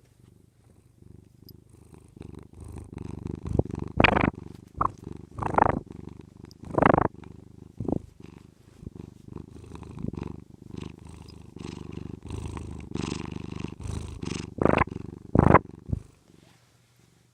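Domestic cat purring close to the microphone, a steady low rumble that stops about sixteen seconds in, with several brief louder sounds over it.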